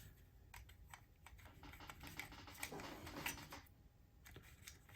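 Faint, scattered small plastic clicks and handling noises as the plastic body shell of an HO scale model locomotive is worked back onto its chassis.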